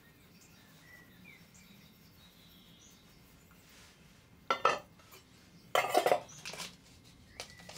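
Spoon clinking and rattling against a mixing bowl in two short bursts in the second half, as salt and sugar are added to the flour for a yeast dough.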